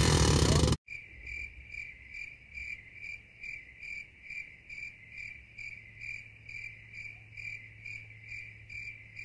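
A loud pickup-truck engine sound cuts off abruptly under a second in, giving way to a cricket-chirping sound effect: one high chirp repeated evenly a little more than twice a second. It is the 'crickets' gag that marks an awkward silence.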